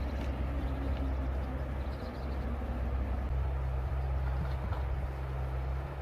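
Steady low rumble of river water running over rocks. Faint, high, quick chirps from small birds come right at the start and again about two seconds in.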